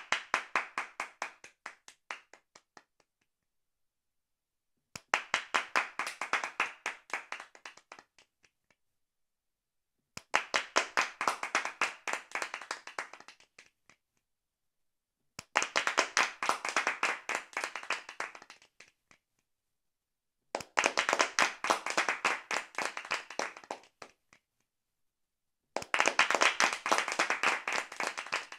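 Hands clapping fast, about seven claps a second, in six bursts of about three seconds each, roughly five seconds apart; each burst fades out, with silence in between.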